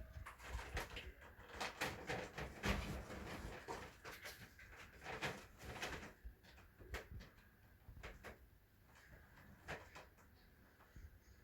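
Irregular knocks, taps and rattles from cats at play in a small room, busy for the first half and sparser after.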